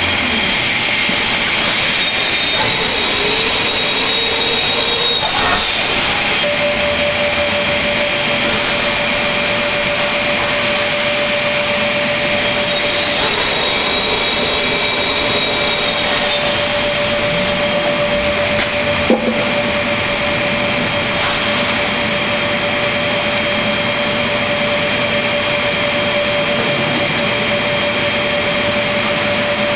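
Automatic MDF panel-cutting machine running: a loud, steady machine noise, with a steady whine setting in about six seconds in and a single sharp knock a little past halfway.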